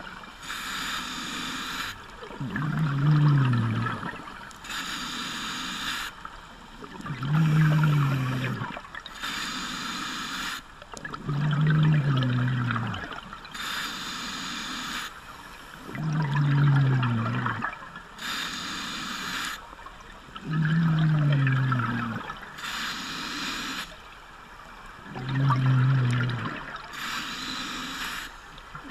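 Scuba diver's own breathing through an open-circuit regulator. Each breath is a short hiss on the inhale, then a louder burbling rush of exhaled bubbles that drops slightly in pitch. The cycle repeats about every four and a half seconds, six or seven breaths in all.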